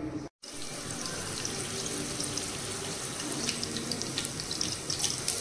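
Green chillies and seeds sizzling in hot oil in a frying pan: a steady hiss with frequent sharp crackles and pops, after a brief break in the sound near the start.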